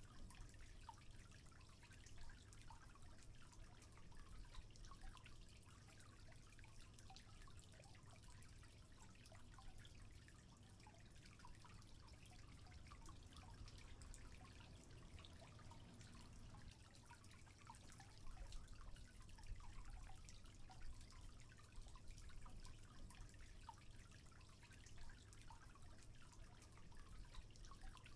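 Faint water trickling, with many small scattered drips.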